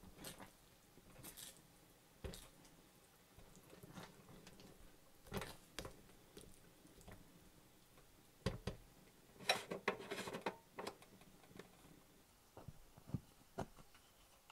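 Silicone spatula stirring a thick, creamy pot pie filling in a steel pan: soft wet squishing with scattered light knocks and scrapes against the pan, in a busier cluster about ten seconds in.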